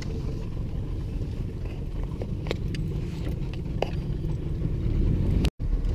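Pontoon boat's outboard motor running with a low, steady rumble, with a few faint clicks on deck. The sound breaks off for an instant near the end.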